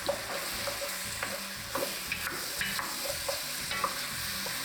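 Soup ingredients sizzling in a hot pot with a steady hiss while a spoon stirs them, giving irregular clicks and scrapes against the pot.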